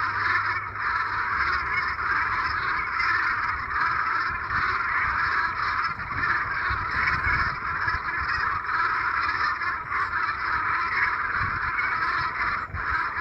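A large flock of geese calling over one another in a continuous dense din of honks.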